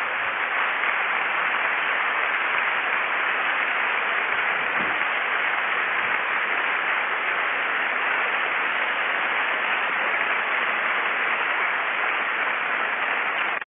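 Audience applauding steadily at the end of a lecture, cutting off suddenly near the end.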